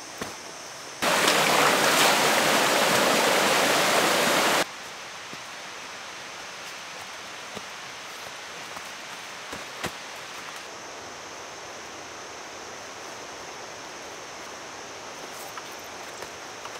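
A loud, even rush of flowing water cuts in about a second in and stops abruptly three and a half seconds later. The rest is quieter forest ambience: a steady high-pitched hiss with a few faint footstep clicks.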